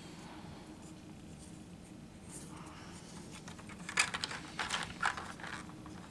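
Hands sorting through a pile of plastic board-game miniatures and their plastic packaging. The sound is light clicks, clacks and crinkles, starting about three seconds in after a faint quiet start, with the sharpest click about four seconds in.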